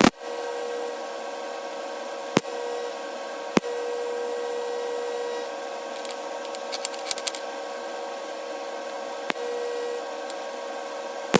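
Welding outfit humming steadily while the tube corners are fusion welded without filler, with a faint crackle of ticks in the middle. A few sharp clicks break the hum at intervals.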